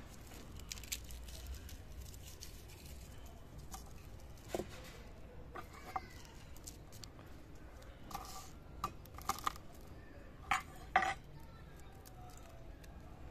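Short bird calls, a few scattered and then a cluster from about eight seconds in, the loudest two near the end, over a faint steady outdoor background.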